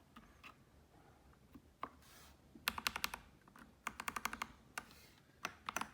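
Keystrokes on an AKKO 3098B mechanical keyboard: a few scattered clicks, then short bursts of quick key presses with pauses between.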